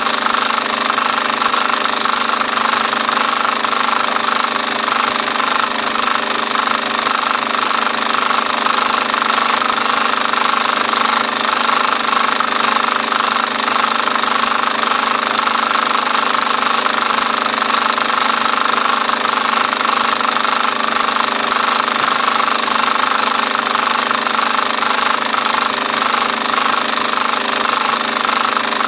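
Film projector mechanism running with a steady, rapid mechanical clatter and hiss, unchanging throughout.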